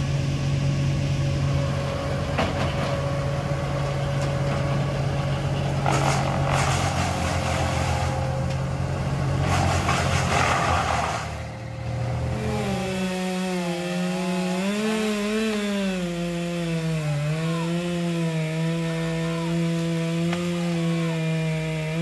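Tree-removal power equipment: a steady engine drone with two bursts of rushing noise, then from about twelve seconds in a chainsaw running at high revs, its pitch repeatedly dipping and recovering.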